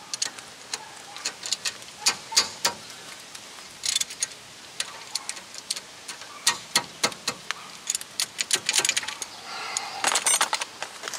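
Metal hand tools and brake parts clinking: a run of irregular sharp clicks and taps, with a brief jingling rattle near the end.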